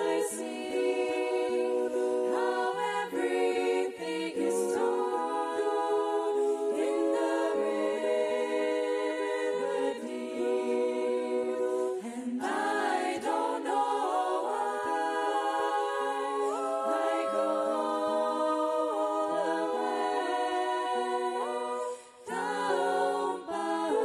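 Female vocal group singing a cappella in close harmony into microphones, holding long sustained chords. There is a brief break in the singing near the end.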